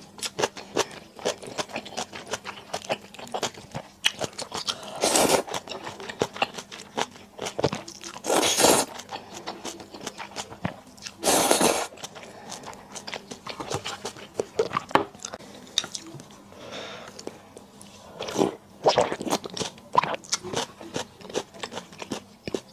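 Close-miked eating: rapid crunchy bites and chewing throughout, with three longer noisy bursts, about five, eight and eleven seconds in, of cold noodles (naengmyeon) being slurped.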